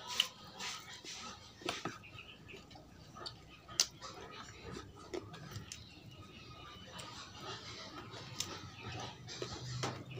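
A person eating with bare hands: quiet chewing and mouth sounds, with scattered short clicks and taps as the food is picked apart.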